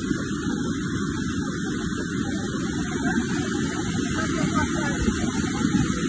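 Steady rushing of a flood-swollen river: fast muddy floodwater pouring over its banks, heard as a continuous low, even rush without breaks.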